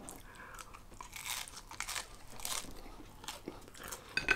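A person biting into and chewing a piece of crusty mozzarella garlic bread, with soft irregular crunching and mouth noises. A brief louder sound comes near the end.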